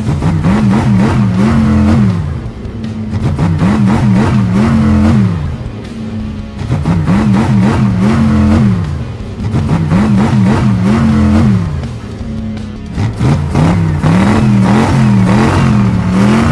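Cartoon monster-truck engine sound effect revving up and down, repeating over and over every few seconds, with background music underneath.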